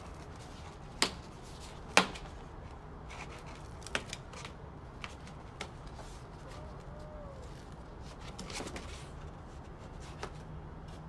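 A cardboard box being opened by gloved hands: paper masking tape peeled from the top and the flaps pulled back, with a few sharp taps and clicks, the loudest about two seconds in, and a papery rustle near the end.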